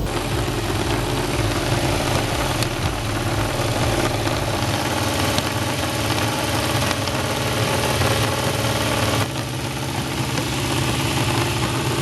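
An engine idling steadily, with a slight change in its sound about nine seconds in.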